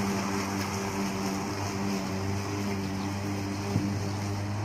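Greenworks 20-inch 12-amp corded electric lawn mower running steadily while cutting grass: a constant motor hum with the whir of the spinning blade, and one brief click about four seconds in.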